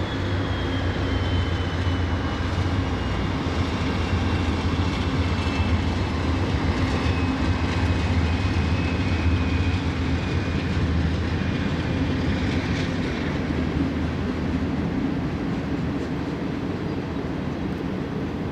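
Freight train hauled by two BNSF diesel locomotives passing on an elevated track. The engines run with a steady low drone, and a thin high tone slowly falls in pitch over the first ten seconds or so.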